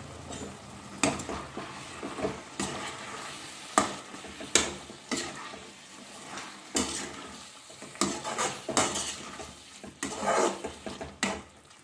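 Metal spoon scraping and knocking against an aluminium kadai as chicken in a thick masala gravy is stirred, in irregular strokes, with the curry sizzling on the heat underneath.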